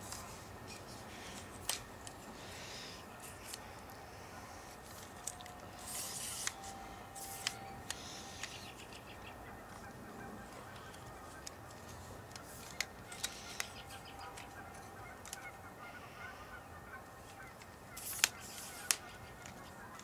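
Federal 2001 tornado sirens sounding faintly in the distance, a steady tone that grows a little stronger through the middle. A few short sharp ticks are heard over it, two of them near the end.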